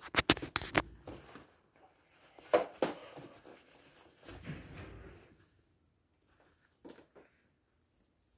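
Handling noise: a quick run of sharp clicks and knocks at the start, a couple more knocks a few seconds later, then low rustling and two faint ticks.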